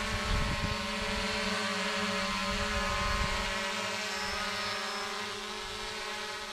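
Xiaomi FIMI X8 SE quadcopter's propellers whining steadily as it flies off carrying a baited fishing line, fading gradually over the last few seconds as it draws away. A low rumble sits under it for the first three seconds.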